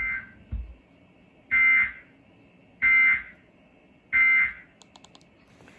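Emergency Alert System end-of-message (SAME "NNNN") data bursts: short, harsh two-tone digital squawks, four of them about 1.4 seconds apart, the first quieter. They mark the end of the alert broadcast.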